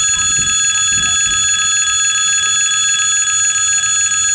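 Level-crossing warning bell ringing steadily and without pause. Under it, the low rumble of the train that has just passed fades out in the first second or so.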